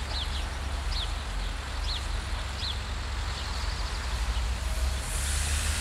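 TFC DH2 diesel railcar approaching with a steady low rumble, while a small bird gives short falling chirps about every 0.7 s in the first three seconds. A hiss rises near the end.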